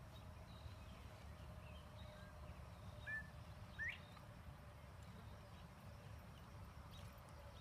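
Quiet outdoor ambience with a low steady rumble; a bird gives two short rising chirps, about three and four seconds in.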